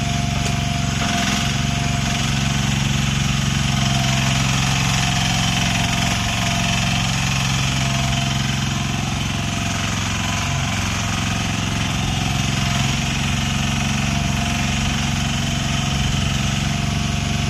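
Mini excavator's engine running steadily at a constant speed, with a thin steady whine above the engine note.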